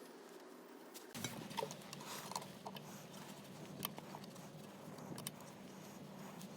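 Faint scattered clicks and taps of small carburetor parts being handled during disassembly, over a low steady hum that starts about a second in.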